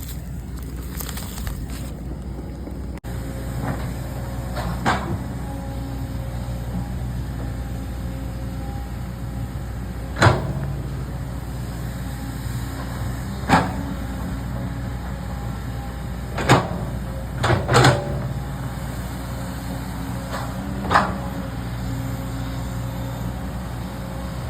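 An engine or motor running steadily, with a few short, sharp knocks and clunks scattered over it.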